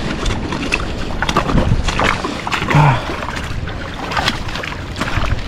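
Steady outdoor rushing noise of wind and water, heaviest in the low end, with scattered short clicks and knocks throughout.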